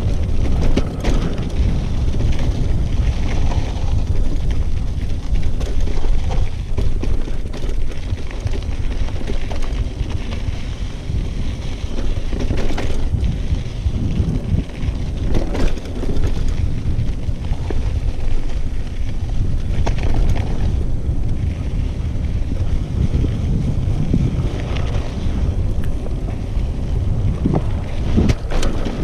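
Wind buffeting the microphone as a mountain bike rolls fast downhill on a dirt singletrack, with a steady tyre rumble and a few brief knocks from the bike going over bumps.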